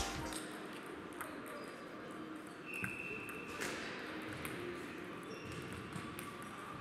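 Table tennis balls clicking on tables and bats, scattered irregular ticks from several tables at once over a steady hall background, with a brief high squeak about three seconds in.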